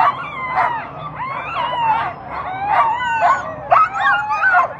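A harnessed sled dog team barking, yipping and howling over one another, many dogs at once with sharp barks mixed with long rising and falling howls: the eager clamour of dogs held at a race start line.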